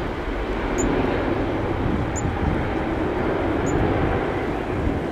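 Jet airliner departing, its engines a steady, loud broad roar, with wind rumbling on the microphone.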